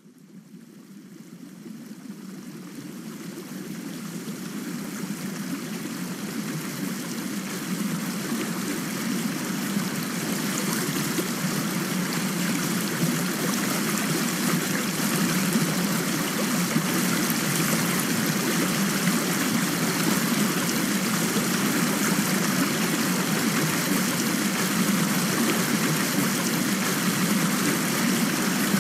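Steady rain, a continuous even hiss that fades in gradually over about the first ten seconds.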